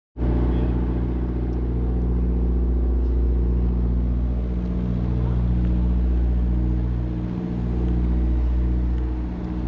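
An engine idling steadily, a low continuous hum with a slight dip about two thirds of the way through and again near the end.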